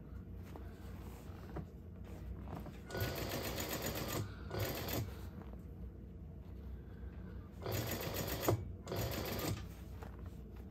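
Juki industrial sewing machine stitching a canvas bag's gusset seam in four short runs of a second or less each, with pauses between as the bag is repositioned.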